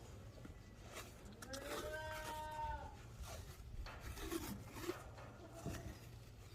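A goat bleats once, a call of about a second and a half starting about a second and a half in. Around it are light rustles and clicks of strapping tape being handled and wrapped.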